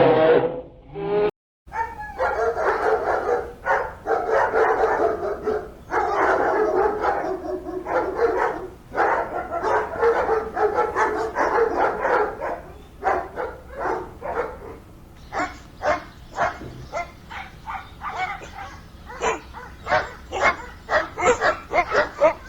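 Dog whining in drawn-out calls, then a quick series of short yaps and barks from about halfway on.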